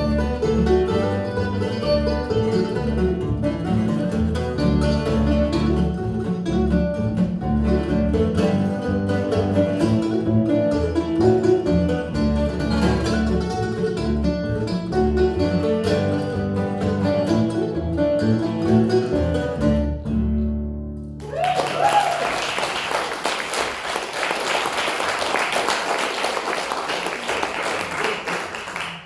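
Bluegrass trio of Ellis A5 mandolin, Martin D-28 acoustic guitar and upright bass playing a brisk tune that ends about three quarters of the way through, followed by audience applause.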